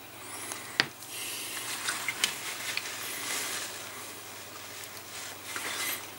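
Small handling noises as a painted miniature and paint brush are handled and set down on a tabletop: a sharp click about a second in, then rustling and a few light taps.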